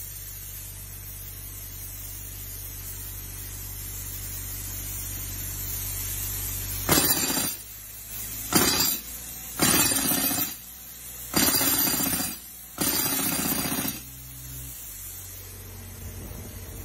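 Pneumatic jackhammer driven by a Denyo 90 CFM air compressor, firing in five short bursts of about a second each, starting about seven seconds in. Underneath, the compressor's Kubota diesel engine runs steadily under load.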